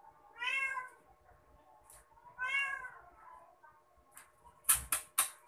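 A cat meowing twice, two short calls about two seconds apart, followed near the end by three sharp clicks or knocks in quick succession.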